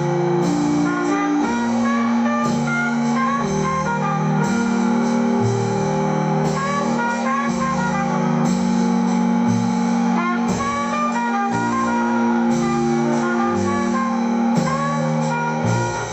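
Instrumental jazz-style music: a wind-instrument melody of quick short notes over a held low drone and a moving bass line, with plucked guitar, dropping away near the end.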